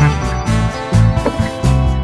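Background music: a guitar-led tune of plucked notes over a bass line.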